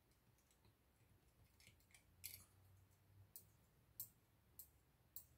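Faint, sharp clicks of a dip pen touching the ink bottle as it is dipped into Platinum Carbon ink, about five of them over the last three seconds with softer ticks before.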